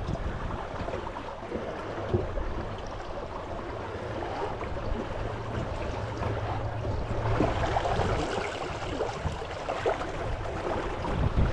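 Small outboard motor pushing an inflatable dinghy across calm water: a steady low hum under water rushing along the hull, the rush swelling about two-thirds of the way through.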